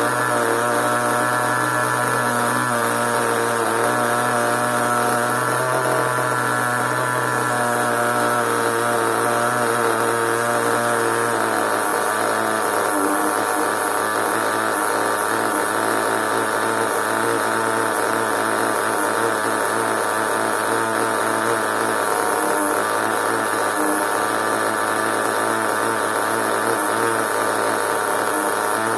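CEN nitro RC monster truck's small glow-fuel engine running steadily with a buzzy note. Its pitch shifts slightly about twelve seconds in.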